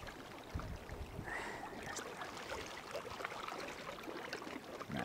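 Shallow sea water lapping and trickling among rocks, a steady wash with scattered small clicks.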